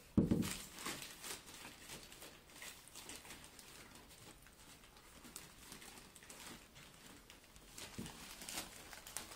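Small puppy moving about on a hardwood floor and nosing at toys: a thump right at the start, then faint scattered clicks and rustles.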